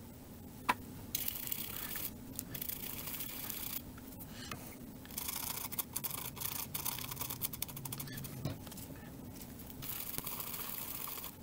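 Scrubbing at a keyboard's circuit board to clean off corrosion left by a liquid spill, in several spells of scratchy scrubbing with short pauses between them.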